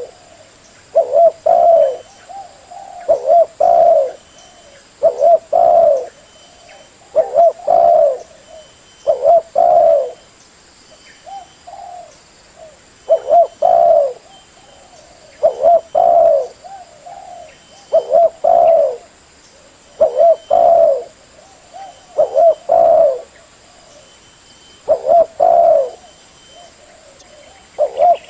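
Spotted dove cooing, a loud phrase of a few short coos repeated about every two seconds: the species' call played as a lure to attract wild doves.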